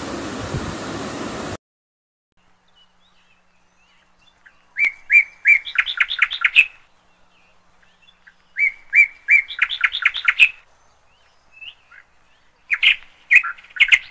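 Oil sizzling steadily in a deep-fry pan, cutting off abruptly about a second and a half in. Then a bird sings three phrases of quick repeated chirps, each phrase about two seconds long.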